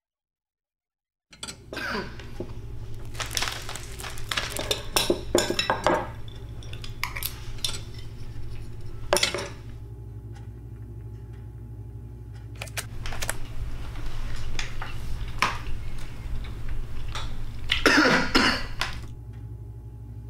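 Metal spoon clinking and scraping against a ceramic bowl of rice while eating, in irregular short strikes over a steady low hum, starting about a second in. Near the end there is one short, louder noisy sound.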